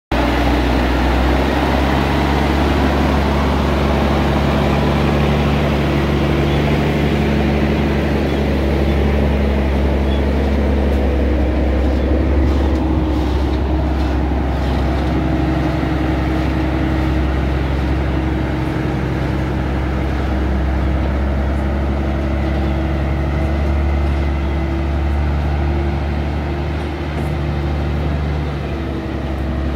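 Mack semi-truck's diesel engine running steadily as the tractor unit pulls a loaded shipping-container trailer at low speed.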